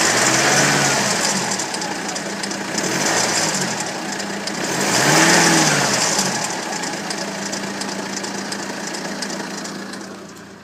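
BMW N47 four-cylinder diesel engine revved three times, its pitch rising and falling, then settling to a steady idle, with the timing chain noise running through it that the owner takes for a failing timing chain.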